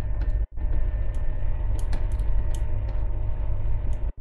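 Steady low rumble with scattered light crinkles and clicks from a paper pattern chart being handled close to the microphone. The sound cuts out completely and briefly twice, about half a second in and near the end.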